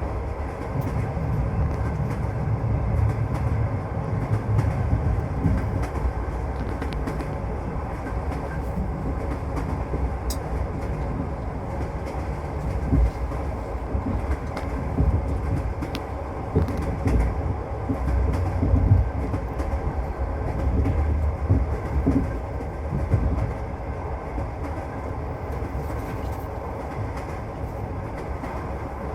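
A passenger train running along the track, heard from inside the carriage: a steady low rumble with occasional knocks of the wheels on the rails.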